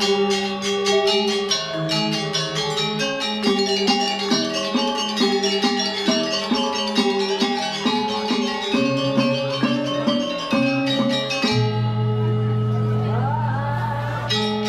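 Balinese gong kebyar gamelan playing: bronze metallophones struck in fast interlocking patterns over drums. About two-thirds of the way through, the fast playing breaks off and a low gong tone rings on for about three seconds. The full ensemble comes back in at the very end.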